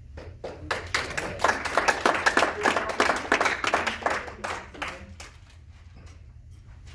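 Audience clapping: a few scattered claps swell quickly into applause, then thin out and stop about five seconds in.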